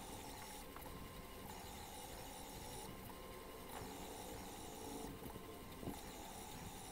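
DIY pen plotter's motors and drawer-slide axes running as the pen carriage sweeps back and forth hatching an image, played at four times speed. A faint whine comes and goes in a pattern that repeats about every two seconds, with a few clicks along the way.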